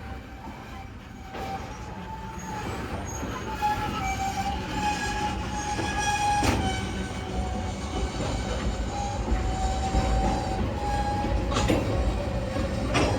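A freight train led by an EMD GP9U diesel locomotive draws near, its low rumble growing louder. A wavering high squeal of wheels sounds over it, with a few sharp clanks of the cars.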